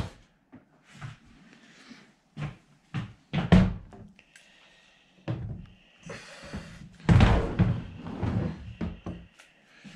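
Irregular knocks and clunks as quilting-machine carriage parts are handled and a wheel is fitted, with a louder cluster of clatter about seven seconds in.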